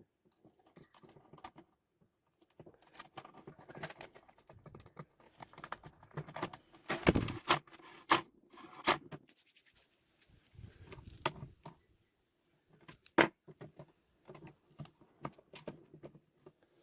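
Metal parts and tools being handled at a workbench: irregular clinking and rattling, with a few sharp knocks, the loudest about halfway through and again near the end.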